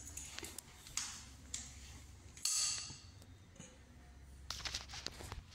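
Scattered light clicks and knocks, with a short rustling scrape about two and a half seconds in and a quick cluster of clicks near the end, over a faint low hum.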